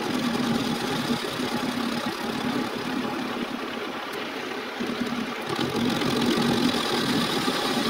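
Metal lathe running, its chuck spinning a blocky workpiece with a steady machine drone. The sound grows brighter and slightly louder about five and a half seconds in.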